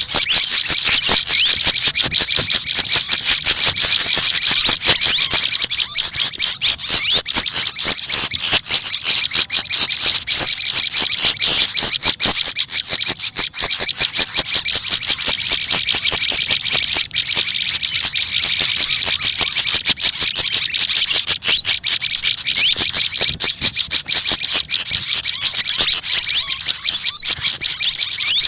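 Small songbirds chirping rapidly and without pause in high, quick notes: the songs of the sikatan kipas (a fantail flycatcher) and the prenjak lumut, Indonesian songbirds.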